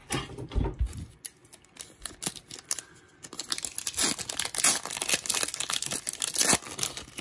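Cellophane wrapper of a trading-card cello pack crinkling and tearing as it is pulled open by hand, with scattered sharp crackles at first and a denser run of crinkling from about four seconds in until near the end.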